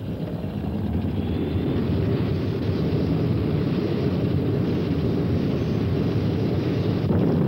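A large hanging gong (tam-tam) swelling into a loud, steady roar about a second in.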